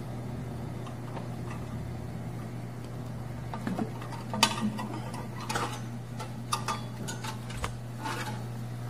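Light clicks and knocks of plastic vacuum suction cups and their hoses being handled, mostly in the second half, over the steady low hum of the electrotherapy unit's vacuum suction pump running.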